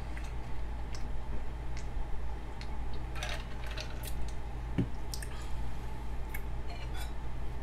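Quiet eating and tableware noises: scattered soft clicks, scrapes and wet squishes of a fork working through takeout enchiladas, with a dull thump about five seconds in. A steady low hum runs underneath.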